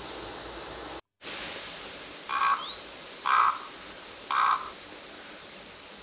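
Common ravens calling: three short calls about a second apart, over a steady background hiss that breaks off briefly about a second in.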